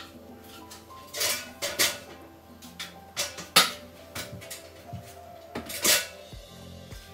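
Sharp clinks and knocks as a plastic paint tub and brush are picked up and handled, a handful of separate knocks spread through, over faint background music.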